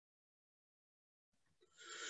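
Near silence: the audio drops out completely, with only a faint noise coming in near the end.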